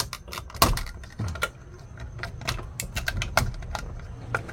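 Irregular clicks and light knocks of small plastic and metal parts being handled and pried loose, as the horn button and contact plate are taken off a Suzuki Carry's steering wheel. The loudest knock comes just under a second in.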